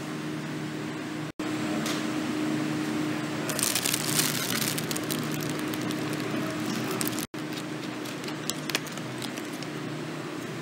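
Plastic produce packaging crinkling and clicking as it is handled, busiest about four to six seconds in, over a steady low store hum. The sound cuts out for an instant twice.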